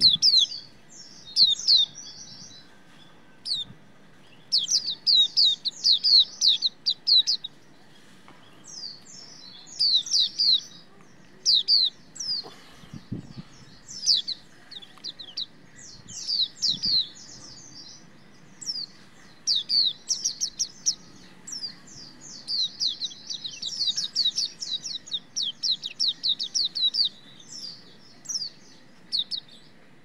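Hume's white-eye (pleci auriventer) singing in rapid bursts of high, thin, downward-sweeping chirps, with short pauses between the runs.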